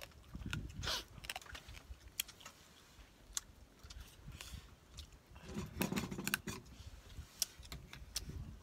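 Close-up chewing of a mouthful of food, with wet smacks and many small clicks.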